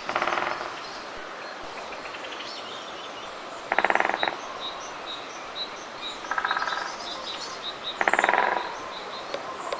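Great spotted woodpecker hammering at a conifer cone wedged in its anvil: four short bursts of rapid pecks, each about half a second long. Small birds chirp high and steadily in the background.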